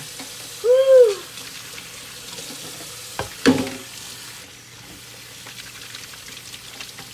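Kitchen sink tap running in a steady hiss, with a single clatter of a dish or utensil about three and a half seconds in, as the dishwashing winds down.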